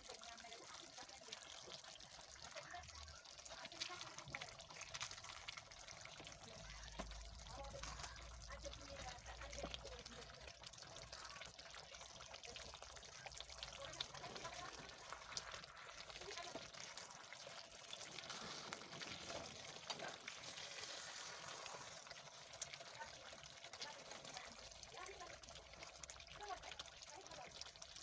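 Thick chicken stew in an aluminium pot being stirred with a wooden spoon. There are wet, sloshing liquid sounds and scattered small clicks and taps of the spoon against the pot.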